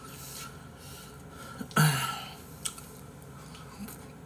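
Close-up eating sounds: faint chewing and mouth noises, with one short, loud, breathy grunt from the eater about two seconds in.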